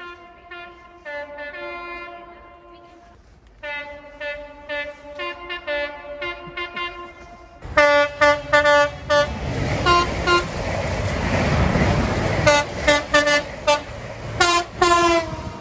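Train horns sounding a chord, several notes at once, in a string of long and short blasts. About eight seconds in, a louder train passes close, its rumble filling in between a rapid series of short horn toots.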